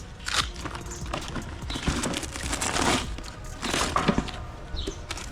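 Cured fiberglass shell being pried and pulled free of its release-waxed mold: irregular cracking and scraping noises as it breaks loose.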